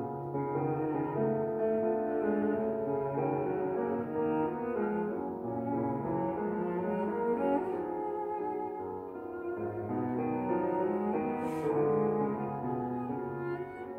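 Recorded cello music with accompaniment, played back through a single-ended EL3N valve amplifier and loudspeaker. The notes are sustained and held.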